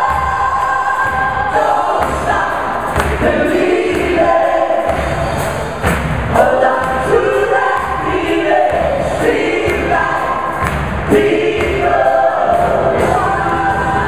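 Live band playing with many singers singing together in chorus over a steady beat, heard from the audience of a concert hall.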